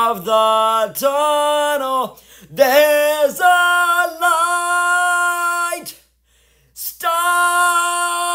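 Musical-theatre singing: voices holding long notes, with brief breaks between phrases, a short silence about six seconds in, then another long held note.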